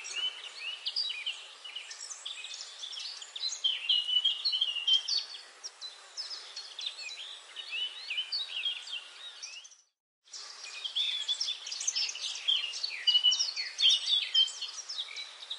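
A chorus of small birds chirping and singing: many short, high calls overlapping continuously. It cuts out for a moment about ten seconds in, then resumes.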